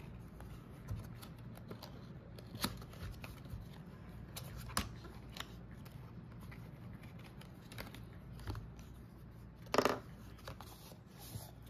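A thin white cardboard product box being opened and its card insert unfolded by hand: scattered crisp clicks and rustles of card, the loudest a short rustle near the end.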